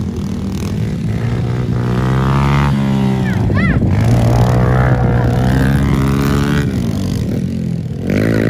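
Motocross dirt bike engine running hard and loud. Its pitch climbs, holds high, drops about two-thirds of the way through as it comes off the throttle or shifts, then climbs again near the end.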